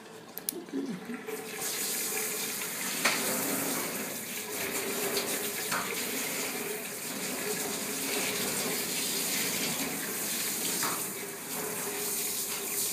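Water spraying steadily from a hand-held sink sprayer onto a kitten and the stainless steel sink, starting about a second and a half in.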